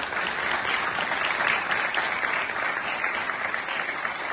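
Audience applauding: many people clapping at once, a dense, steady patter.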